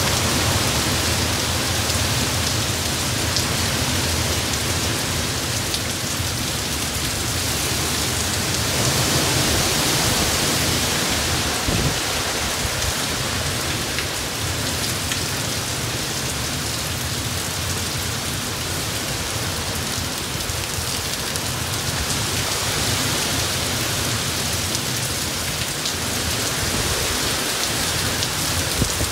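Heavy hurricane rain pouring steadily with strong wind, swelling louder in gusts twice, once about a third of the way in and again past the middle.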